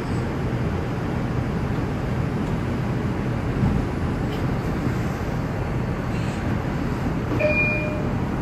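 R142 subway car running on the rails, heard from inside the car: a steady rumble of wheels and traction motors with a few faint clicks, and a brief high tone near the end.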